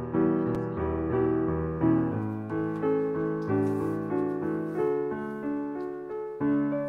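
Background piano music: a melody of evenly paced struck notes over low bass notes.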